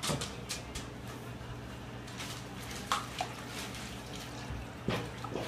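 Water splashing and dripping in a galvanized metal washtub as a dog is bathed by hand: a few short splashes over a steady low hum.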